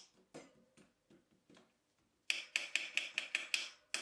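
A hand tool tapping on a Shimano hydraulic STI brake lever body and its hose: a few light taps, then a quick run of about eight sharper taps near the end. The taps knock trapped air bubbles loose during a bleed with a mineral-oil funnel in the bleed port.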